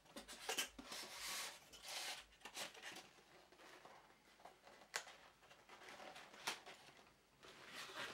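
Faint rustling and scraping as hands work a white packaging box and paper into a nylon carry bag, with two sharp clicks in the second half.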